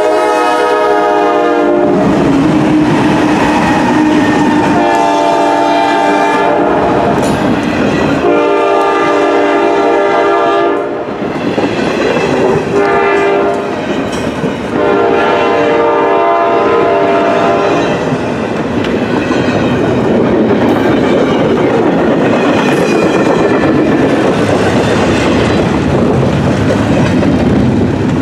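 CSX GE ES40DC locomotive horn sounding a series of loud blasts, one of them short, with the last ending about two-thirds of the way through. A double-stack container train rolls past with a steady rumble and wheel clatter that carries on after the horn stops.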